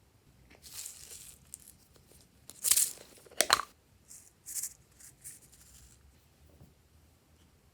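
Glossy slime being squished and stretched by hand, giving an irregular run of short crackling, tearing-like pops. The two loudest come a little before the middle.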